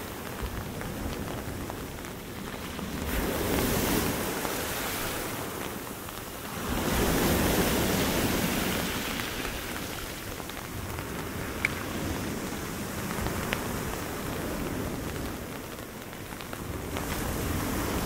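Storm surf breaking and washing up the beach under steady rain, with some wind on the microphone. The waves swell louder twice, about three to five seconds in and again from about seven to nine seconds in, and build once more near the end.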